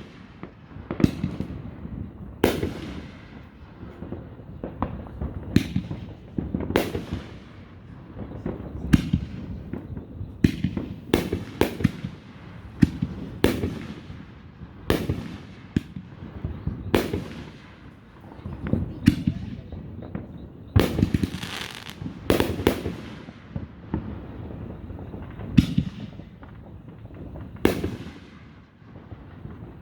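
Aerial fireworks going off in a steady series of sharp bangs, about one or two a second, each trailing off in a short rumble, with a crackling stretch about two-thirds of the way through.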